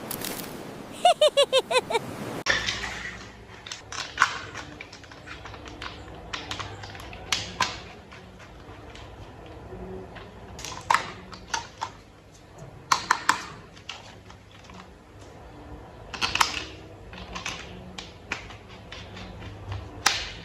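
Plastic toy vehicle parts being handled and fitted together: scattered sharp clicks and taps, some in quick clusters. A quick run of about six short falling tones near the start.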